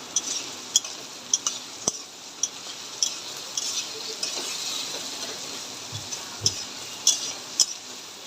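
Food frying in hot oil in a pan with a steady sizzle, stirred with a metal spatula that clinks and scrapes against the pan a dozen or more times at irregular intervals.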